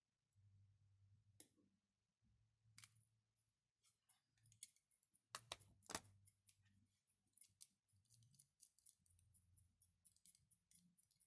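Light plastic clicks from the 3D-printed wheels of a mechanical counter being turned by hand, coming in a quick run several times a second from about four seconds in. A single sharp click about a second and a half in comes before the run.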